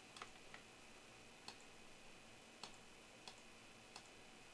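Faint computer mouse clicks, each one re-running a list randomizer: a few quick clicks at first, then one about every two-thirds of a second.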